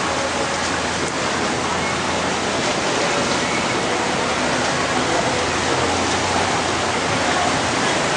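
Steady, loud hiss of water, even and unbroken throughout.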